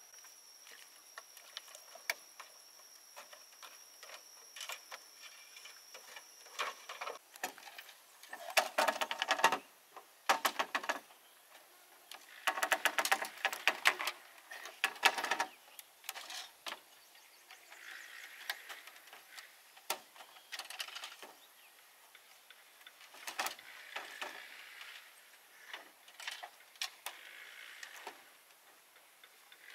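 Bamboo frame poles and deck creaking and clicking in rapid runs as they are gripped, hung from and pulled, with the loudest spells a few seconds in and again near the middle. A thin steady insect whine is heard high above it and stops about a quarter of the way through.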